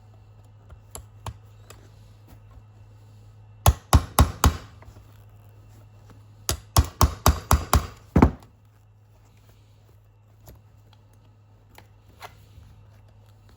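Hammer blows driving out the armrest's pins: four quick strikes about four seconds in, then a run of about six more that ends in one heavier blow, with a few lighter knocks before and after.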